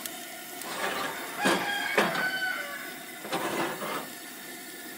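Wooden spoon scraping and stirring diced tomatoes around a hot cast iron skillet, working the chicken drippings loose from the bottom of the pan, in several uneven strokes. There are two sharper knocks of the spoon against the pan, about one and a half and two seconds in.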